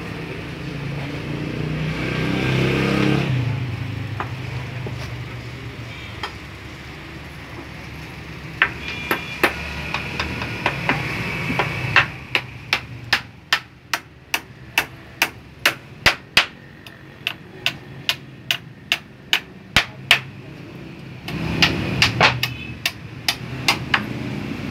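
Hammer nailing pallet-wood boards of a table frame: a long run of sharp blows, about one or two a second, then a short pause and a quick cluster of a few more blows near the end.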